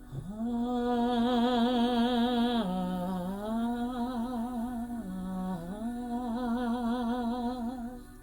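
A woman's voice toning a long sustained note with a wavering vibrato. Twice it briefly dips to a lower note and slides back up. This is vocal toning used for sound healing.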